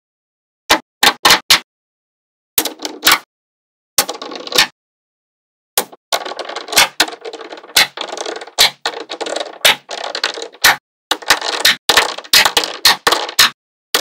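Small magnetic balls clicking and clacking together as they are handled. At first there are a few short clusters of sharp clicks, then from about six seconds in a dense, rattling clatter of many balls, with brief pauses.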